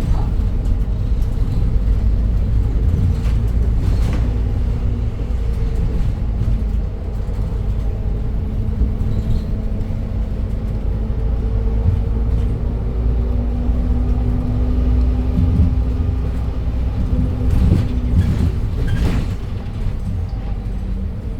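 Cabin sound of a 2021 Edison Motors Smart 110G low-floor city bus with a CNG GX12P engine and ZF six-speed automatic, driving: a steady low rumble of engine and road with a faint drone that drifts a little in pitch. A couple of short knocks or rattles come about four seconds in and again near the end.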